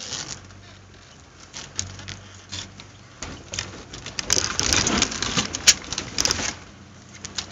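Four-wheel drive's tyres crunching and crackling over gravel and dry sticks on a rough dirt track, heard from inside the cabin with knocks and rattles, over a faint low engine hum. The crackling grows denser and louder from about three seconds in and eases off near the end.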